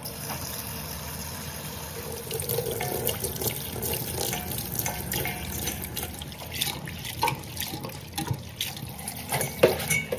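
Tap water running into a metal bowl of bean sprouts and garlic chives in a sink, with splashing as hands swish and rinse the vegetables. A sharp knock comes near the end.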